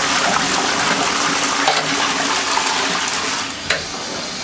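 Toilet flushing: water rushing and swirling down the bowl, easing off a little near the end, with a brief click.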